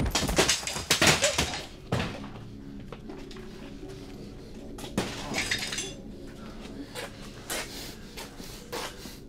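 A burst of crashing and breaking, several loud impacts in quick succession over about two seconds, as in a violent struggle. It gives way to a low, steady drone.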